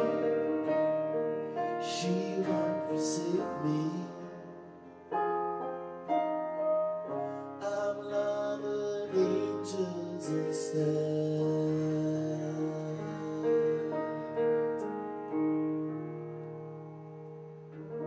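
Roland digital stage piano playing slow sustained chords and single notes. The last chord is held and fades out near the end.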